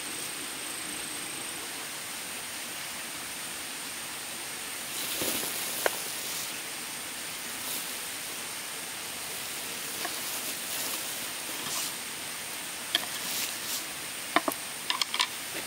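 Steady hiss with a thin high steady tone, broken by a short rustle about five seconds in and by scattered light clicks and taps, several in quick succession near the end.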